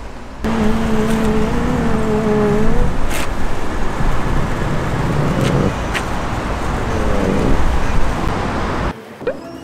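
A long, low, slightly wavering buzz of a fart sound played through a speaker bag, lasting about two seconds near the start. Steady city street traffic noise continues under it and after it.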